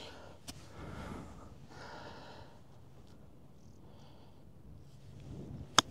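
A golf club striking the ball on a chip shot: a single sharp click near the end.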